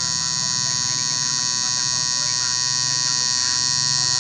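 Tattoo machine buzzing steadily as its needle works ink into skin.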